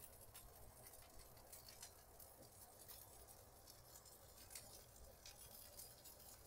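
Near silence, with faint scattered crackling from turkey burgers sizzling in a cast iron skillet.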